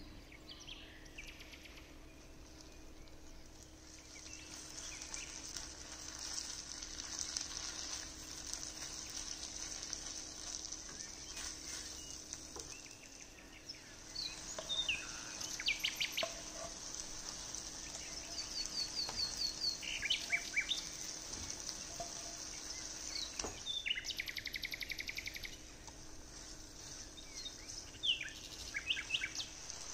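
Curry paste and chicken sizzling in a nonstick frying pan, a steady high hiss, with several short bursts of quick, high chirping sounds.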